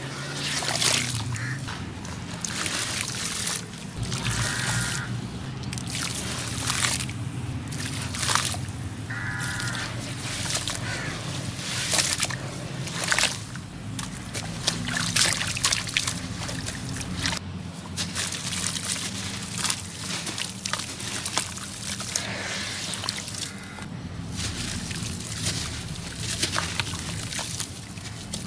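Wet crumbled cement-and-ash pot pieces being squeezed by hand and dropped into a basin of water: irregular splashing, sloshing and trickling, with gritty crunches as the soaked lumps break apart.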